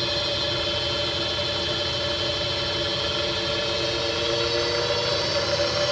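Vintage Delta-Rockwell 12-inch wood lathe, spinning with no workpiece and belt-driven by a treadmill's PWM DC motor, running with a steady whine of several tones. A little past four seconds in, the whine starts rising in pitch and grows louder as the speed is turned up.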